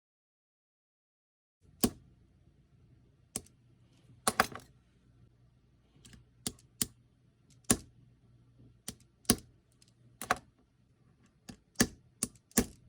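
After about a second and a half of silence, irregular sharp clicks and light taps of small tools handling watch parts at the bench, over a faint low hum.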